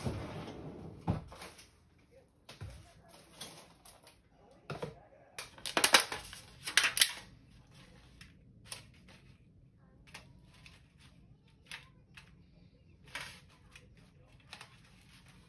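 Kitchen handling sounds: a refrigerator door opening with a click near the start, then a clear plastic herb clamshell crinkling loudly for a couple of seconds, followed by light taps and rustles as thyme sprigs are picked from the pack.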